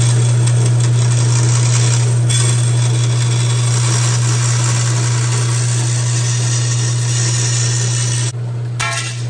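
Bandsaw cutting an aluminium gas-tank panel: a steady motor hum under a loud, continuous hiss of the blade going through the sheet. About eight seconds in, the cutting noise drops away and the saw runs on a little quieter.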